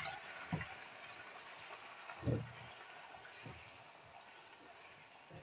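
Raw chicken pieces sizzling faintly in hot oil in a non-stick wok as they are stirred with a silicone spatula, with a few soft thuds of the pieces and spatula against the pan, the loudest about two seconds in.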